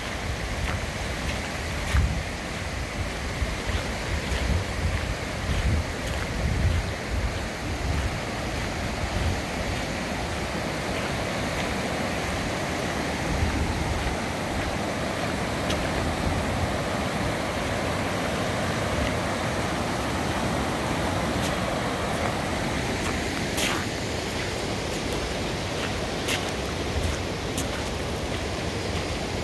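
Muddy floodwater rushing across a road and yard, a steady hiss of flowing water. Wind buffets the microphone in gusts during the first several seconds.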